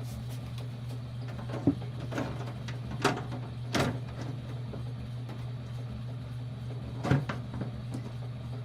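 A steady low hum with a few separate knocks and scrapes, like objects being handled.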